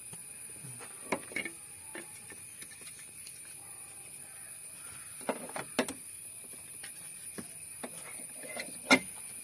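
A few short sharp clicks and knocks, the loudest near the end, over a steady high-pitched tone; the air horn is not sounding.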